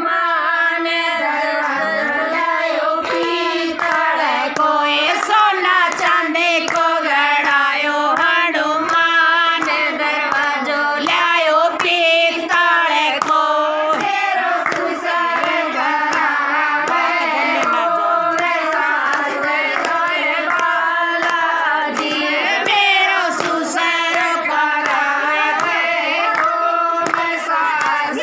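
Women singing a Hindi devotional bhajan to Hanuman, unaccompanied by instruments except for hand clapping that keeps the beat.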